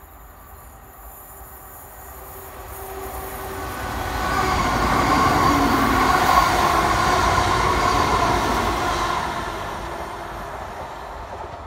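A diesel multiple-unit passenger train passing close by: its engine and wheels on the rails grow louder over about four seconds, stay loudest for several seconds, then fade as it moves away.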